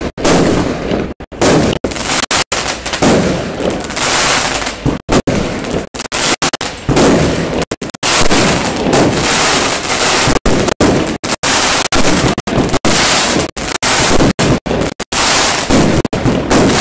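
Fireworks display going off: a dense, loud run of bangs and crackles, cut by many abrupt split-second dropouts.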